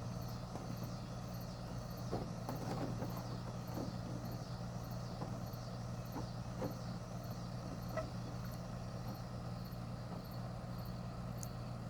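Steady low hum with insects chirping high above it, about two chirps a second, and a few light clinks and knocks from pasta being moved into another pan.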